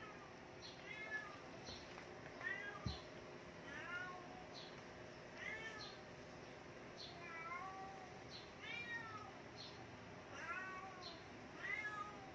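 Siamese cat in heat calling with short, repeated meows, about one a second, each rising then falling in pitch. A single low thump about three seconds in.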